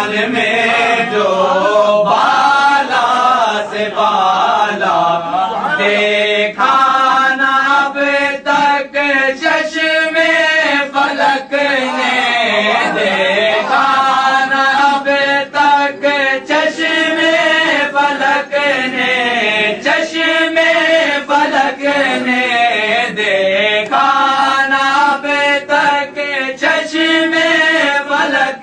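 A man's voice chanting in a melodic, drawn-out recitation, notes held and wavering, with brief breaths between phrases.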